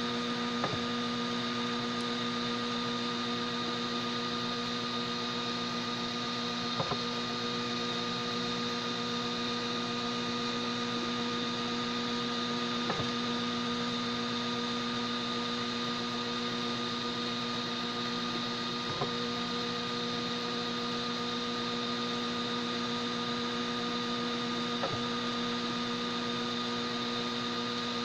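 Homemade 3D printer running mid-print: a steady electrical hum, with a faint click about every six seconds.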